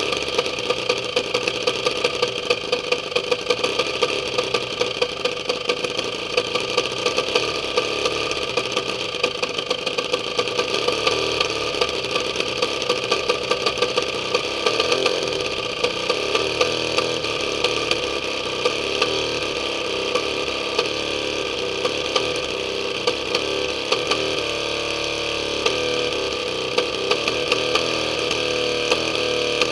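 200cc inline-twin Husqvarna engine running steadily on a test stand and spinning a propeller, with a sharp crack standing out a few times a second.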